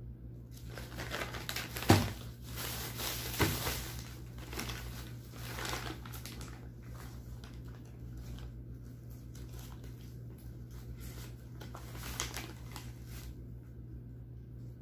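Thin plastic carrier bags crinkling and rustling as they are handled, busiest in the first half, with two sharp knocks about two seconds in and a second and a half later. The rustling then thins to faint crackles over a steady low hum.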